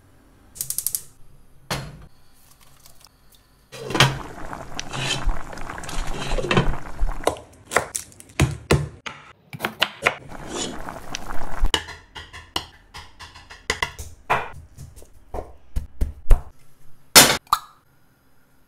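Kitchen prep sounds: a series of sharp knocks of a chef's knife cutting on a wooden chopping board, with clinks of dishes.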